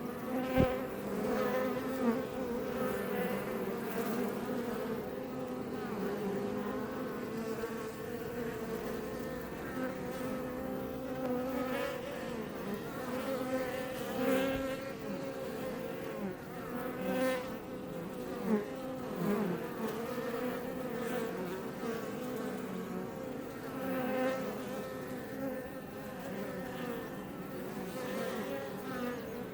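Iberian honey bees buzzing at a Langstroth hive: a steady many-voiced hum, with single bees now and then passing close and briefly louder.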